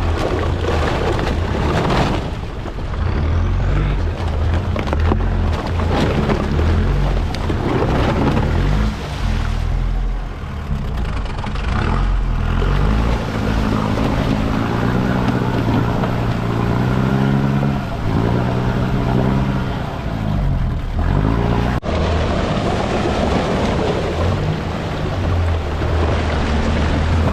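Off-road 4x4's engine working as it drives through a deep, icy water crossing, the revs rising and falling again and again through the middle, over a steady rush of wind and water noise.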